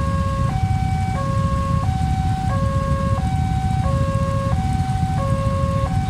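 Electronic warning alarm of a railway level crossing, sounding from its pole loudspeaker: two tones alternating back and forth, switching about every 0.7 seconds, over a low rumble of engines.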